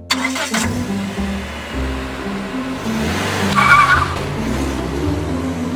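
Car engine sound effect of a car driving off, over background music with a repeating bass line. A brief high-pitched sound comes about three and a half seconds in.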